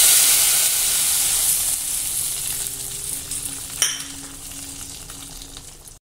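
Hot-oil tempering of mustard seeds, cumin seeds, dried red chilies and curry leaves poured into boiling sambar, setting off a sudden loud sizzle that slowly fades over several seconds. A short tap about four seconds in.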